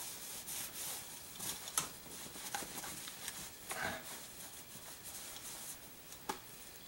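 Microfiber cloth rubbing over a wooden shotgun stock, wiping off a coat of paste wax: faint, irregular wiping strokes.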